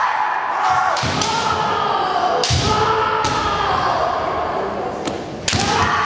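Kendo bout: loud kiai shouts from the fighters, with several sharp cracks and thuds of bamboo shinai strikes and stamping feet on a wooden sports-hall floor, about four impacts, the last and loudest near the end.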